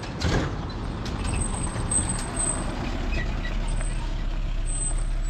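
Maruti Gypsy 4x4 pulling up alongside and slowing to a stop, its engine running steadily and growing a little louder as it draws level.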